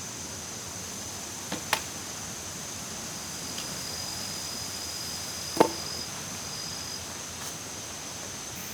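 Sharp knocks: two quick ones about a second and a half in, then a louder single one past halfway, over a steady high-pitched hiss.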